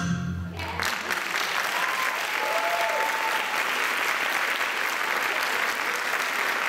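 Audience applauding steadily after the last low note of the show music cuts off about a second in.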